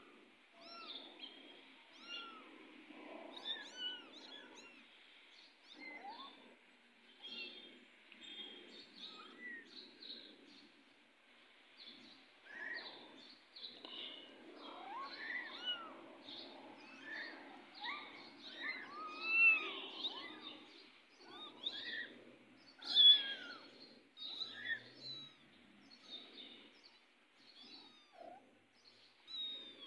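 Kittens mewing over and over in short, high, thin calls, with a couple of louder mews near the middle and about three quarters of the way through.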